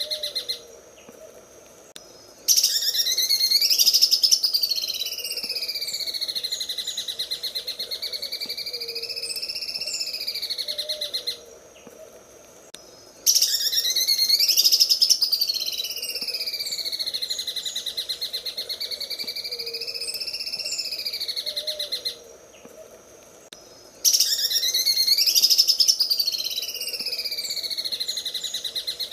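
Cucak ijo (greater green leafbird) singing its fast, rattling 'sewing machine' trill that wavers up and down in pitch. It comes in three long bursts, each preceded by a short pause, over faint high chirps and a low background of frog-like calls.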